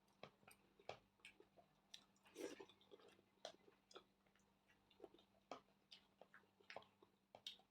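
Close-miked chewing: soft, irregular mouth smacks and small crunches, several a second, with a slightly louder bite about two and a half seconds in.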